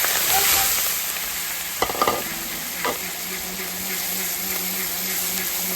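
Food sizzling in hot oil in a pan, with a few sharp knocks of a utensil against the pan about two seconds in.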